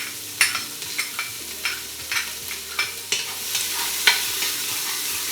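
Chopped onions sizzling in hot rendered chicken fat, with sharp clicks of a utensil scraping and knocking against the pan about twice a second as they are stirred.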